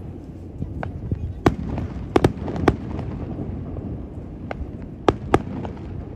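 Aerial firework shells bursting in an irregular series of sharp bangs over a steady low rumble. There is a tight cluster of bangs about one and a half to three seconds in, and a pair just after five seconds.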